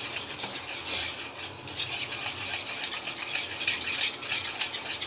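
Wire whisk beating thick jalebi batter in a plastic bowl: a fast, rhythmic scraping and clicking of the wires against the bowl.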